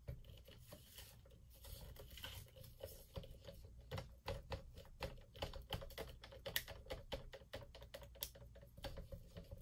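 Stir stick clicking and tapping against the sides of a clear plastic cup while acrylic pouring paint is stirred briskly: a quick, uneven run of many small clicks.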